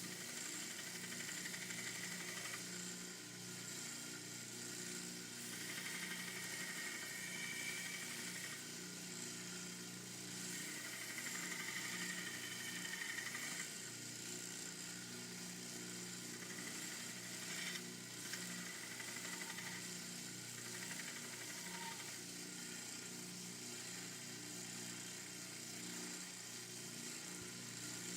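Belt grinder running steadily with a low hum, with several stretches of a few seconds each where a higher grinding sound rises as the knife's armadillo-shell handles are ground on a 400-grit belt.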